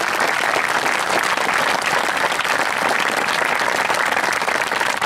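Audience of high-school football players applauding: dense, steady clapping from many hands.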